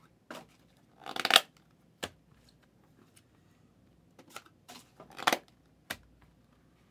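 Trading card packaging being handled and torn open: short crinkling and tearing rustles, loudest about a second in and again about five seconds in. A few light clicks come between them, and a dull thump near the end.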